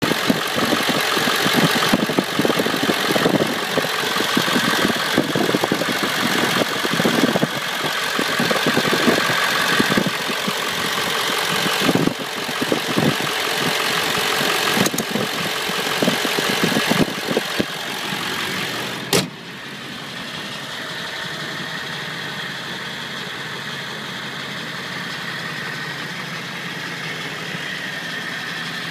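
Ford 7.3-litre Powerstroke V8 turbo diesel idling, a loud irregular diesel clatter heard close at the engine bay. About two-thirds through there is one sharp click, after which the engine sounds quieter and steadier.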